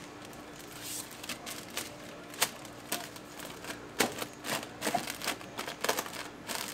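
Dry, crisp laver sheets crinkling and crackling as they are handled, with irregular sharp clicks, the loudest about two and a half and four seconds in, over a faint steady hum.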